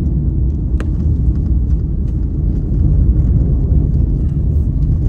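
A vehicle driving along a road, with a steady low rumble of engine and road noise. There is one short click about a second in.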